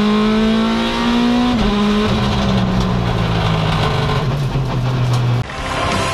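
Mini John Cooper WRC rally car's 1.6-litre turbocharged four-cylinder engine heard from inside the cockpit. The revs climb, drop sharply with an upshift about a second and a half in, then fall away steadily. Near the end the sound cuts abruptly to theme music.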